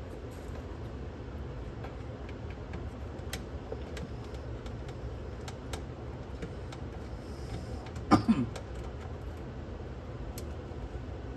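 Small clicks and ticks of a hand screwdriver working screws out of a cassette deck's circuit board and metal chassis, with one brief louder clunk about eight seconds in, over a steady low hum.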